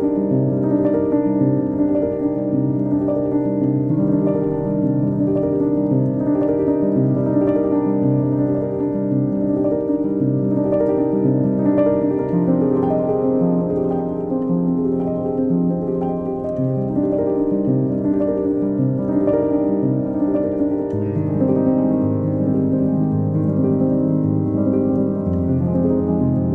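Background music: a calm piano piece of sustained chords with notes changing about every second, the bass dropping lower near the end.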